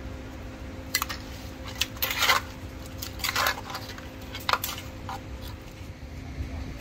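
Kitchenware clattering and clinking: a handful of short metal-and-crockery knocks spread across a few seconds, with a steady low hum underneath.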